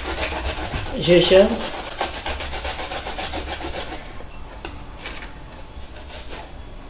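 Fresh ginger root being grated on a stainless steel box grater: quick, repeated rasping strokes that thin out to a few scattered strokes about four seconds in.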